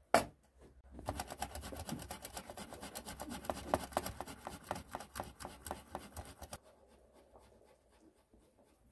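A single sharp knock, then a quick run of scraping strokes lasting about five seconds before stopping.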